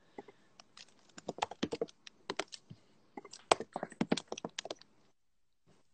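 Irregular light taps and clicks in a quick, uneven run like typing, stopping about five seconds in.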